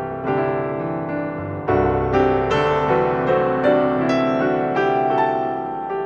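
Background piano music: a gentle melody of struck notes over sustained chords.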